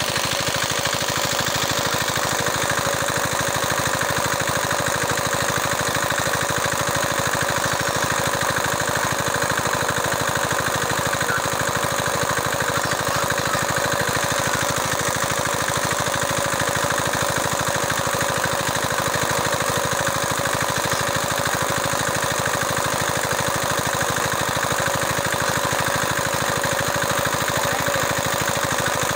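Small engine running steadily at a constant speed, as on an engine-driven water pump drawing water through a pipe.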